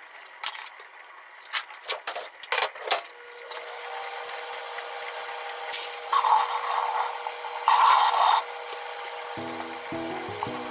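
Food prep on a wooden cutting board: a few short clicks and knocks as things are handled, then two scraping strokes, each about half a second long and about a second and a half apart, worked along an eggplant.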